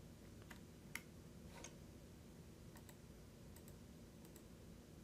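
A few faint computer mouse clicks, scattered roughly a second apart, over quiet room hum: clicks on a document viewer's zoom-out button.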